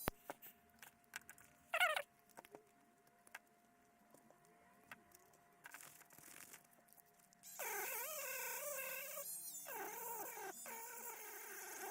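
Rotary tool with a felt polishing pad buffing a stainless steel watch clasp with diamond paste: its whine wavers and dips in pitch under pressure, with a high hiss of buffing, in bursts about 2 s in and again from about 7.5 s on, quieter in between.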